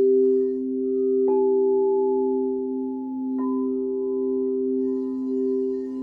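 Crystal singing bowls ringing: two lower bowls hold steady tones that waver slowly in loudness, and a higher bowl is struck about a second in and another, higher still, just past halfway, each adding a new held tone.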